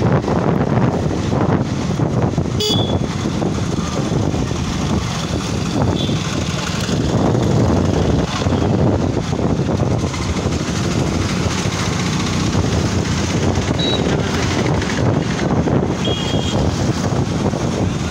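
Motorcycle running along a town street with steady engine and road noise. Several brief high horn toots from other traffic sound during the ride.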